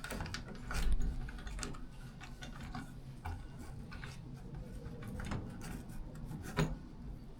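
Light clicks, taps and rubbing of metal lock hardware being handled and fitted by hand, with a dull bump about a second in and a sharper click near the end.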